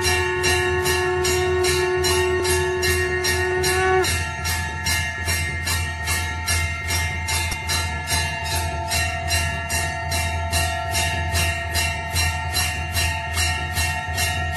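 Music with a steady jingle-bell beat, about three strikes a second, over held notes; the lowest held note stops about four seconds in.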